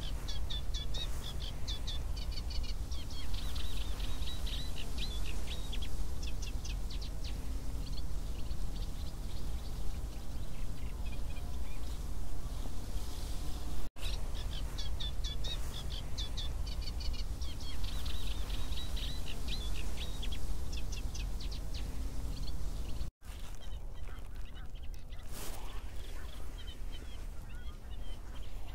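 A small bird's rapid, chattering trains of high chirps, repeated in phrases, over a steady low rumble. The sound drops out for an instant twice, at cuts.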